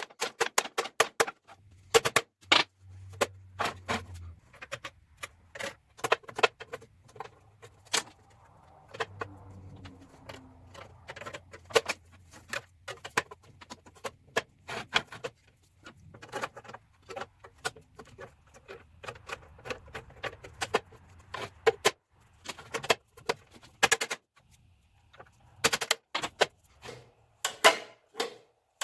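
Many sharp metallic clicks and knocks, often in quick runs, from work on a rusty benchtop drill press, with a faint low hum under them for most of the time.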